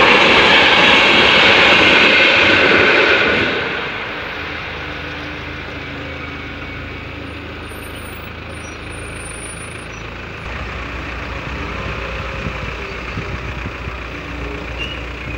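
Mail train coaches rolling over the crossing, loud wheel-and-rail rumble for the first three or so seconds, then dropping away as the train clears. From about ten seconds in, a car engine idles steadily at the crossing.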